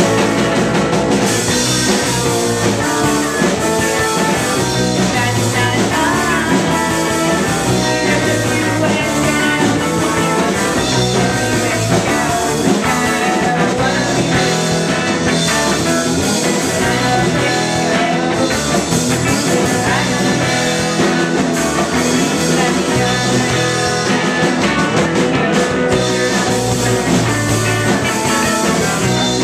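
A rock band playing live and loud: drum kit with cymbals, electric bass, and a woman singing.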